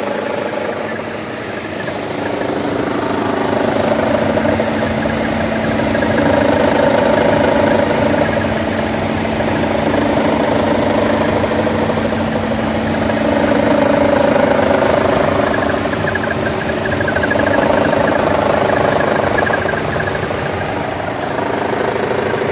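2014 Chevrolet Cruze's 1.4-litre turbocharged four-cylinder idling roughly with the air-conditioning compressor loading it, the sound swelling and easing every few seconds. This is the shimmy-shake at idle under AC load that the owner reports with no fault codes and an intact PCV diaphragm and check valve.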